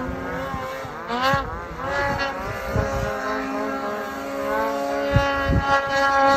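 Snowmobile engines revving and easing off as the sleds carve through powder, more than one engine at once, their pitch rising and falling with the throttle.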